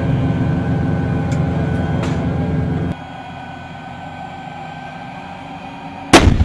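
Heavy armoured-vehicle engine running steadily, heard from on board. It stops abruptly about three seconds in, leaving a quieter steady background. Near the end an M109 155 mm self-propelled howitzer fires one loud shot.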